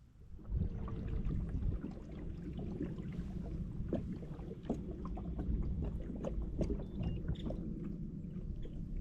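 Sounds of a fishing kayak on the water: a steady low rumble with many small clicks and knocks from hull and gear.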